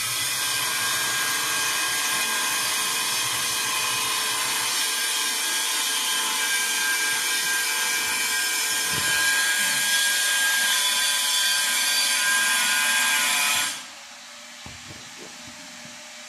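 A power tool running steadily, a loud even hiss with faint steady tones, that stops abruptly about 14 seconds in.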